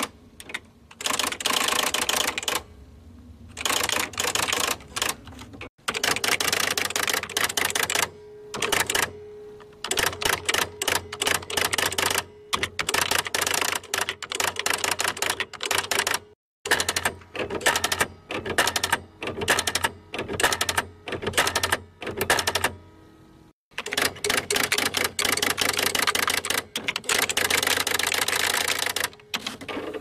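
Electric typewriter being typed on in quick runs of sharp key strikes, broken by short pauses, with the machine's motor humming underneath.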